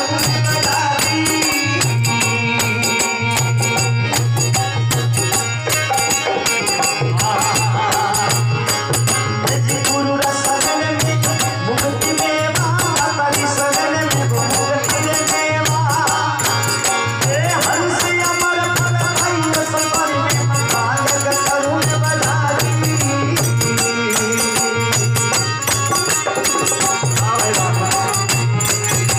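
Live chetawani bhajan (Rajasthani devotional song) played through a PA system: a harmonium with small hand percussion keeping a steady beat, and a man singing into the microphone.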